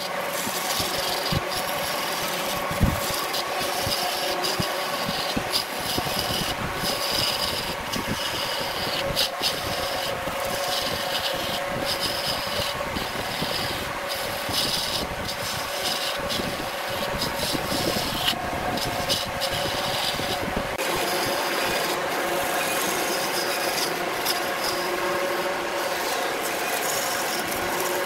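Wood lathe running with a steady motor hum while a turning tool cuts the spinning wooden blank, a continuous rough scraping that swells and drops away with short breaks as the tool is worked along the piece.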